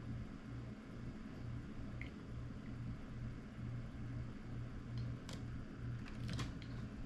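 A low hum that pulses at an even rate, with a few light clicks a little past the middle and near the end.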